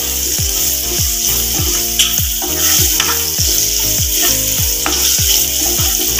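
Chopped okra and tempering spices sizzling in hot oil in a nonstick kadai, stirred with a wooden spatula. Underneath runs a regular low beat of falling thumps, about two a second.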